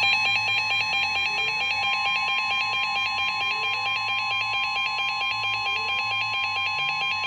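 NOAA Weather Radio warning alarm tone, the steady 1050 Hz tone that signals a warning is about to be read, held without a break. A fast-pulsing, higher-pitched beeping alarm runs over it.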